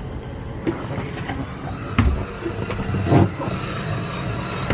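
Footsteps going down wooden companionway steps into a boat's hull: a few separate thumps, the loudest about two seconds in and a longer thud a little after three seconds, over a steady low rumble.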